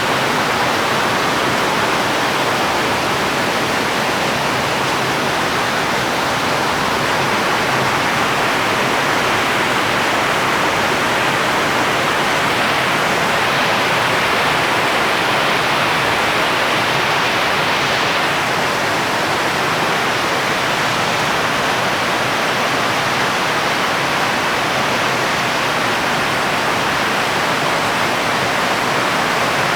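Steady heavy rain falling as an even, unbroken hiss, with no single drops or thunder standing out.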